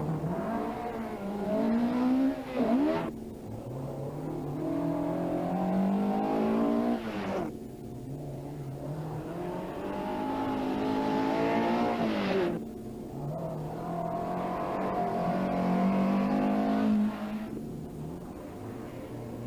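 Rally car engine revving hard. It climbs in pitch and then drops sharply at each gear change, about four times, as the car accelerates through the gears.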